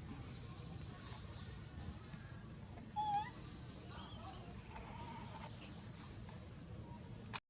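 Two short, high-pitched animal calls over a steady low background: a brief wavering call about three seconds in, then a thinner, higher call about a second later that slides slowly down over about a second.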